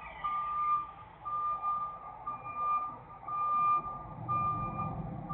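Backup alarm of a reversing tractor-trailer rig: one steady tone beeping about once a second, each beep nearly a second long. Under it the truck's engine rumbles low and grows louder about four seconds in.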